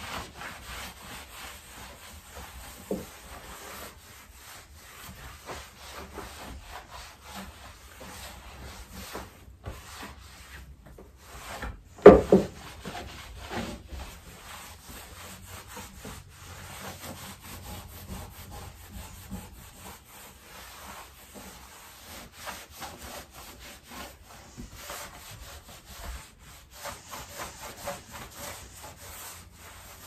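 Cloth rag rubbing back and forth across a damp tabletop, wiping it down with a vinegar cleaning solution in a steady run of scrubbing strokes. A single loud knock stands out about twelve seconds in.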